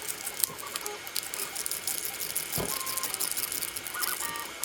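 Rapid light clicks and taps of small plastic and metal RC-car parts and screws being handled and fitted, with a couple of faint short squeaks.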